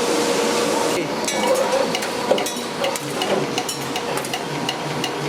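Light metallic clicking and clinking from a machine's mechanism over a steady hum. The clicks start about a second in, irregular at first, then settle into faint regular ticks about twice a second.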